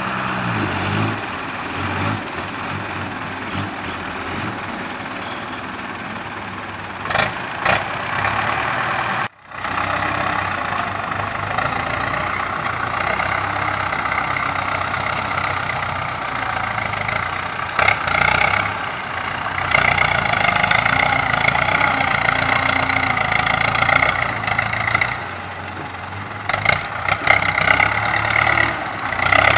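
Diesel engine of a six-wheel dump truck idling with its bed raised, then, after a cut, a farm tractor's diesel engine running under load as it pushes and grades freshly dumped soil with a front blade.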